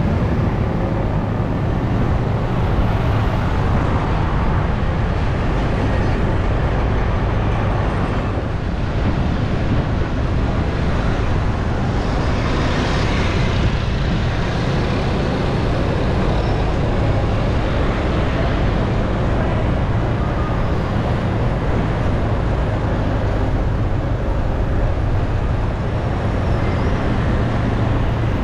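Steady road traffic noise, with one vehicle passing closer about halfway through.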